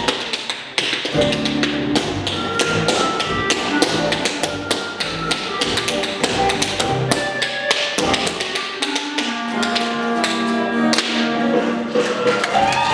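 Fast, dense percussive tapping kept in time with music, with pitched instrumental tones playing underneath.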